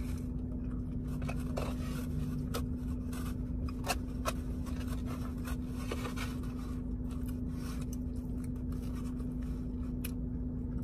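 Eating and food-handling noises: light scraping and a few scattered clicks, over a steady low hum.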